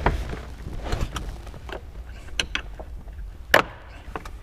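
Screwdriver prying at the plastic screw cover on a seatbelt anchor: scattered light clicks and scrapes of tool on plastic, with one sharper click about three and a half seconds in.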